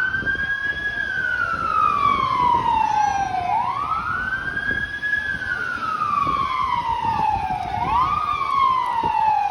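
Federal Signal PA300 electronic siren sounding a wail: the tone sweeps quickly up, then glides slowly down, repeating about every four seconds, with the last rise shorter than the others.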